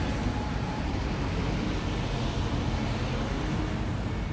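Street traffic: cars passing along the street, a steady hum of engines and tyres.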